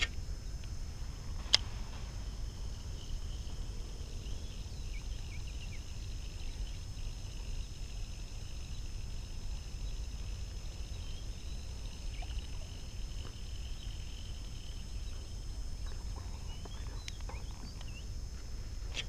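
Outdoor riverside ambience: a steady low rumble with a steady high-pitched hum above it, and a thin wavering chirring that comes in a few seconds in and fades near the end. A single sharp click sounds about a second and a half in.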